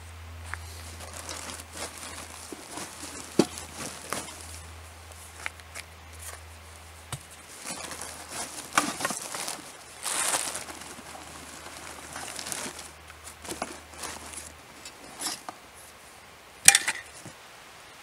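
Rustling and crinkling of gear and a plastic bag being handled and stuffed into a fabric backpack, with scattered small knocks and clicks. A sharp click near the end.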